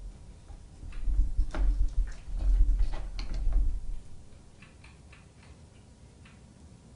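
Scattered light clicks and taps from small wires and plastic connectors being handled on a workbench, with a low handling rumble, for about three seconds. After that only a few faint ticks.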